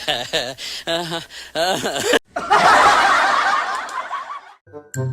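A person laughing in short, rapid bursts, then after a sudden cut a louder din of many voices at once for about two seconds. A chiming music tune starts near the end.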